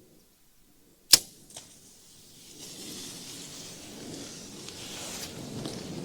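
A bow shot: the sharp snap of the bowstring releasing, and about half a second later a smaller thwack as the arrow strikes. Then a rustling crash through leaves and brush that builds over the next few seconds.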